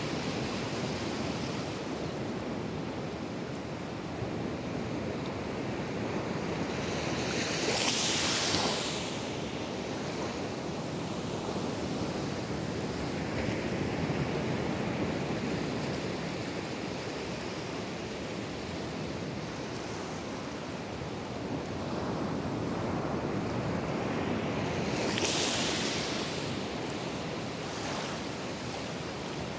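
Atlantic surf breaking offshore and washing over shallow water at the shoreline, a steady rushing wash. Two louder hissing surges come through, about eight seconds in and again near the end.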